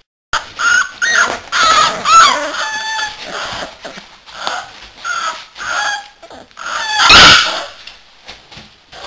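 American Staffordshire terrier puppies yapping and whining in a string of short, high-pitched calls that waver in pitch, the loudest about seven seconds in.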